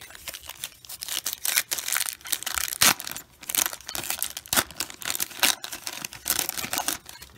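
Plastic wrapper of a 1989 NBA Hoops basketball card pack being torn open and crinkled by hand: a run of ripping and crackling with many sharp crackles, the loudest about three seconds in.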